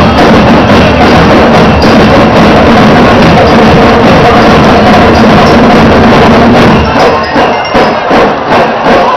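Show marching band playing loud music with drums and percussion. About two-thirds of the way through the full sound drops away, leaving drum beats at roughly two a second.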